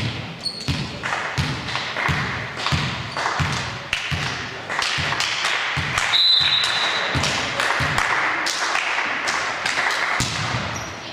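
Basketball being dribbled on a gym floor, a steady run of bounces at about two a second, over the noise of the hall, with a short high-pitched squeak about six seconds in.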